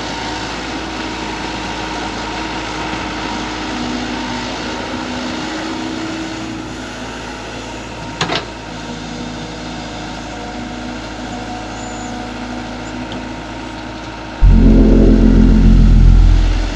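Diesel engine of an IHI IS120 long-arm excavator running steadily, with one sharp knock about eight seconds in. Near the end a much louder low droning sound starts suddenly and lasts about two seconds.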